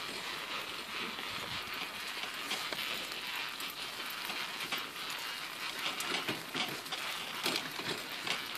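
Odder pram's wheels rolling along a rough path: a steady gritty hiss with many small clicks and crackles.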